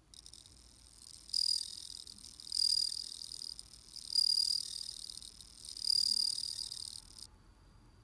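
Japanese bell crickets (suzumushi) singing: a high, bell-like ringing trill from males rubbing their raised wings. It swells to a loud 'riin' four times, about every second and a half, and cuts off abruptly near the end.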